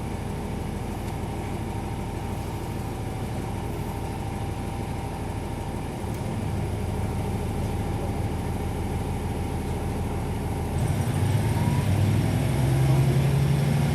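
Diesel railcar engine running under the floor, heard from inside the carriage. Its low hum grows louder in steps about halfway through and again near the end, as the engine is worked harder.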